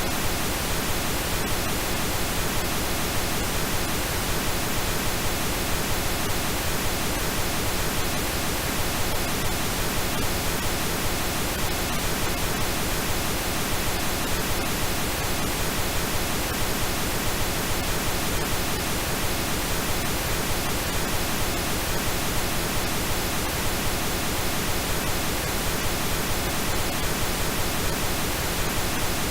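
Synthetic pink noise: a steady, unchanging hiss spread evenly across the whole range.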